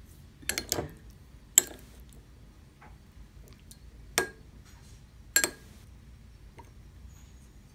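Metal spoon clinking against a glass bowl of mung bean soup while sugar is stirred in: a handful of separate clinks and taps, the two loudest about four and five and a half seconds in, each ringing briefly.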